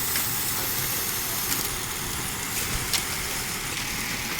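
Belt-driven machine running steadily, with a couple of faint clicks.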